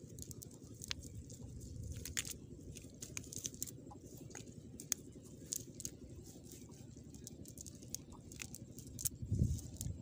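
Dry grass and a fishing net rustling and crackling as hands pick small fish out of the net: scattered light clicks over a steady low rumble, with a dull thump near the end.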